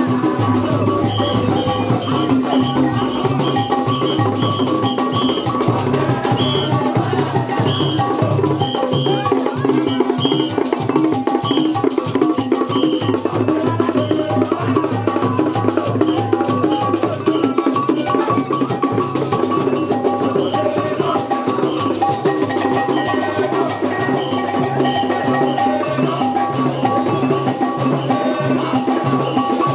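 Music with a steady drum beat and percussion.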